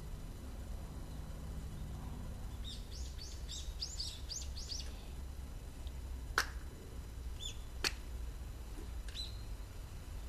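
A small bird gives a quick run of about ten high chirps over two seconds, then a few single chirps. In the middle come two sharp claps about a second and a half apart, the loudest sounds, over a low steady rumble.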